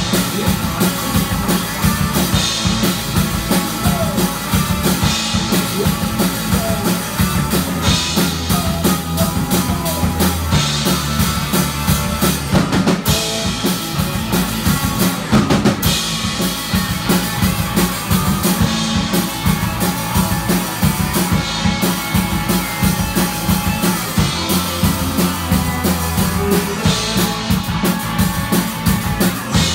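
Rock band playing live in a small room: electric guitars and bass guitar over a drum kit keeping a steady beat, with cymbal crashes recurring every few seconds.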